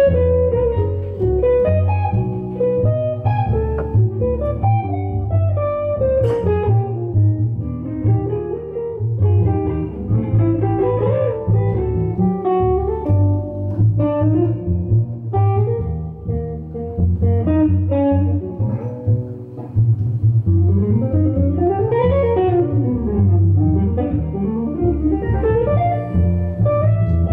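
Jazz trio music: an electric guitar solo of fast melodic lines over a plucked upright double bass, with quick runs up and down the neck in the last third.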